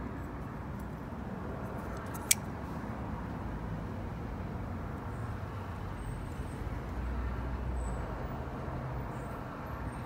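Titanium frame-lock folding knife (Steve Karroll Fatty SES) flipped open on its bearing pivot, the blade snapping into lock with one sharp click about two seconds in, over a steady low background rumble.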